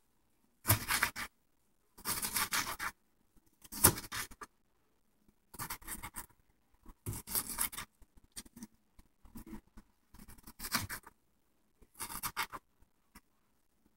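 Kitchen knife cutting food on a plastic cutting board: a series of short scraping strokes, about nine in all, coming unevenly with brief pauses between them.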